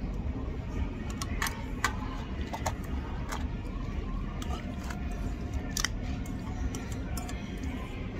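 Scattered light clicks and clinks of tableware at irregular intervals, over a steady low hum of restaurant background noise.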